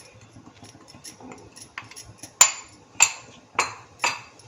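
A metal kitchen utensil knocked against a cooking pan: four sharp clinks about half a second apart in the second half, after a few faint taps, as rice flour is tipped into the pan of boiling water and milk.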